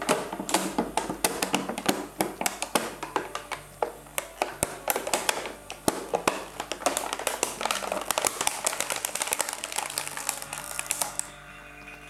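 Large plastic water can crackling and popping in rapid, irregular cracks as a vacuum pump draws the air out and the walls buckle inward; the crackling stops abruptly near the end.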